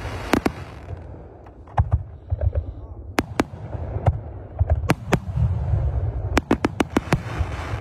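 Aerial fireworks bursting overhead: sharp bangs in irregular clusters, with a quick run of reports near the end, over a low rumble of launches and echo.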